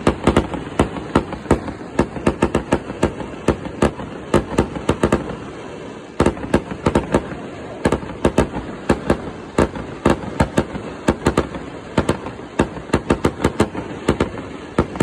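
Fireworks going off in a rapid barrage: a steady run of sharp bangs and pops, several a second, with a short lull about six seconds in.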